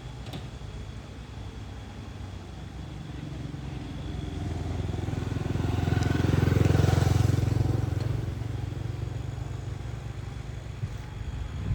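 A motor vehicle passing by on the road: its engine and tyre noise grows louder to a peak about seven seconds in, then fades away.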